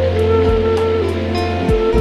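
Background music with held notes, a bass line and a light steady beat, over the rushing of a waterfall.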